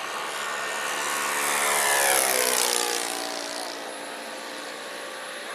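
Boomerang Nano turbine RC jet making a fast pass. The turbine whine swells to its loudest about two seconds in, falls in pitch as the jet goes by, then fades to a steadier, more distant whine.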